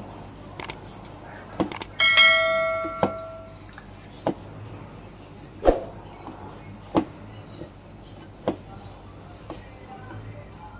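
Stainless steel mixing bowl struck once about two seconds in, ringing like a bell and dying away over a second or so. After it come dull knocks about every second and a half as dough is kneaded and pressed against the bowl.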